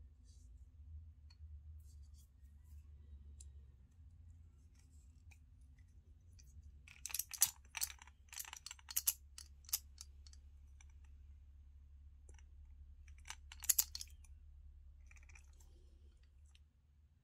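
Fishing line and lure handled close to the microphone while a knot is tied and worked tight: scattered light clicks, with a run of sharp clicks about seven to ten seconds in and another burst near fourteen seconds, over a steady low hum.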